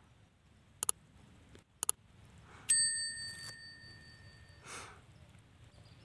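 Sound effects of a subscribe-button animation: two quick double mouse clicks about a second apart, then a bright bell ding about two and a half seconds in that rings and fades over about two seconds.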